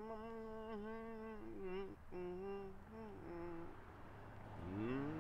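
A man humming a slow tune in long held notes, with a short pause about four seconds in before he slides up into the next note.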